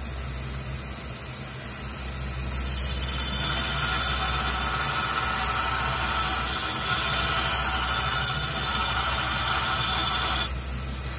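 Belt grinder motor running steadily. About two and a half seconds in, the steel axe head is pressed to the abrasive belt and grinds with a steady hiss, cutting a new bevel on the edge, until the blade is lifted off near the end.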